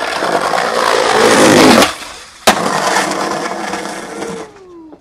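Skateboard wheels rolling hard over paving, growing loud as the board passes close, then a single sharp crack of the board about two and a half seconds in, followed by more rolling that fades away near the end.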